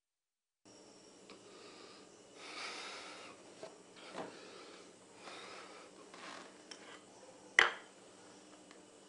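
A man breathing audibly a few times, soft sniffs and sighs over quiet room tone, with a small click about four seconds in and a sharp knock about seven and a half seconds in.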